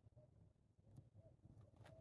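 Near silence: a faint steady low hum with a few faint clicks and tiny chirp-like sounds.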